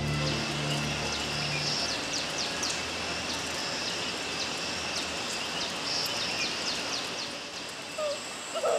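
Outdoor rural ambience: a steady high insect drone with quick, repeated short chirps above it. Near the end a child's voice calls out briefly.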